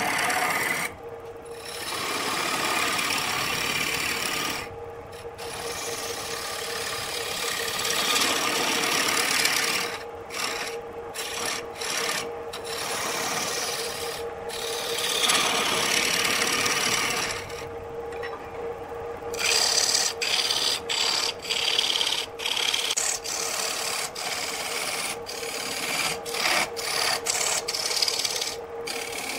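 A lathe gouge cuts into a spinning wooden blank, making a continuous scraping hiss as shavings peel off. The cut breaks off briefly many times as the tool is lifted, more often near the end. A steady hum from the lathe runs underneath.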